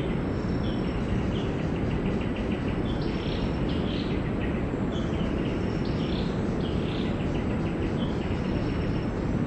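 Outdoor ambience: a steady low rumble of noise under repeated high animal calls. Each call is a short note running into a fast rattling trill and recurs every second or two.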